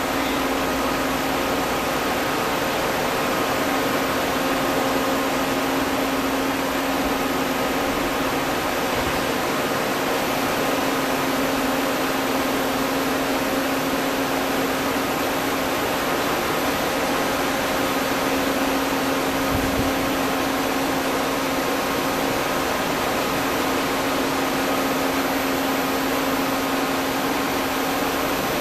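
MTI RM-1 friction stir welding machine running steadily during a steel butt weld: an even mechanical noise with a constant hum from the spinning tool and spindle.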